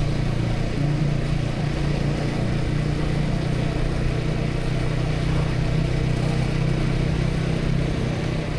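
Motorcycle engine running steadily while riding, with road and wind noise, picked up by the action camera's built-in mic on a helmet chin mount.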